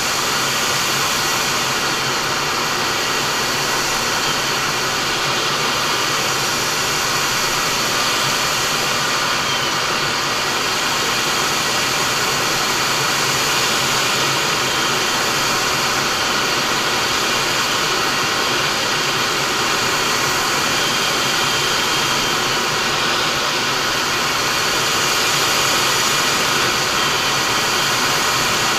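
Steady rushing noise inside a MiG-29 fighter's cockpit in flight: airflow over the canopy mixed with the twin RD-33 turbofan engines, with a faint thin whine above it. The level holds even throughout.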